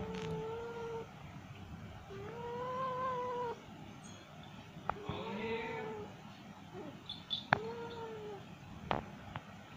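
Female cat in heat yowling: four long, drawn-out calls of about a second each, a mating call. A few sharp clicks fall between the later calls.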